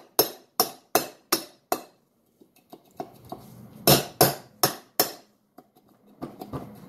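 Hammer striking the steel hub of a go-kart wheel: sharp, ringing metal-on-metal blows about two to three a second. They pause around two seconds in, then come again, with a couple of lighter taps near the end.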